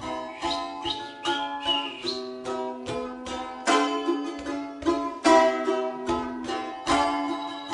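Several balalaikas played together, strummed chords and plucked notes ringing out one after another at an uneven pace.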